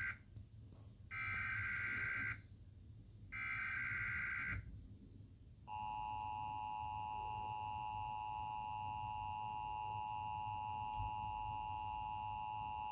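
Emergency Alert System header: two short buzzing bursts of digital data tones, each about a second long and a second apart, then about six seconds in the steady two-tone EAS attention signal starts and holds. This is the alert opening before a National Weather Service tornado watch message.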